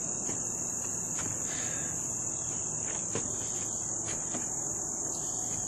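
Crickets trilling steadily at a high pitch, with a few faint clicks about one, three and four seconds in.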